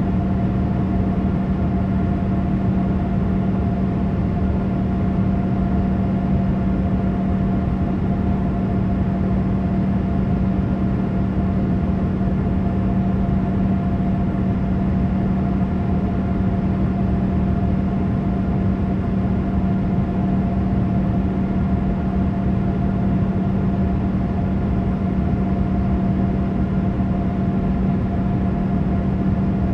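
Boeing 787 cabin noise in flight: a steady rush of engine and airflow noise with a constant low hum and a fainter higher tone.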